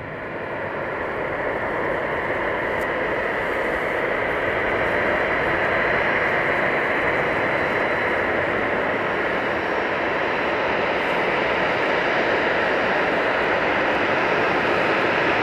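Jet engines of a Boeing 737-800 airliner: a steady rushing noise with a faint high whine, growing louder over the first several seconds.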